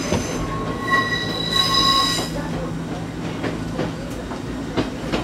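Ichibata Electric Railway 2100-series electric train running at speed, heard from inside the car: the wheels squeal in a steady high tone for about a second and a half, starting about a second in, over the constant running noise. A couple of sharp clacks from the track come near the end.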